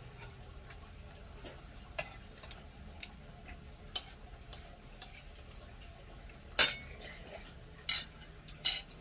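A metal spoon clinking against stainless steel bowls while eating: a few scattered light clinks, then a louder clank about two-thirds of the way through and two more near the end.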